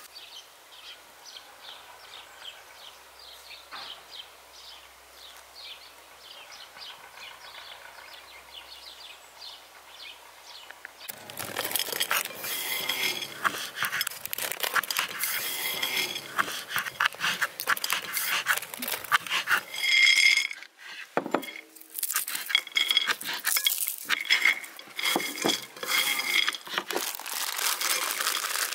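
Charcoal burning in a metal bucket stove, crackling faintly with small scattered ticks. About eleven seconds in, a louder run of quick knocks and clicks starts: a knife chopping dried apricots on a wooden cutting board.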